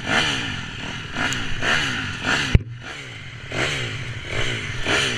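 Dirt bike and quad bike engines idling, with the revs blipped up and falling away again several times. There is one sharp knock about halfway through.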